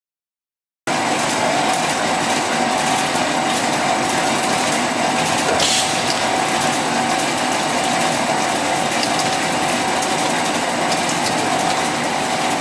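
PVC tube extrusion line running: a steady mechanical hum and hiss with a constant mid-pitched whine, starting abruptly about a second in. A brief hiss a little before halfway.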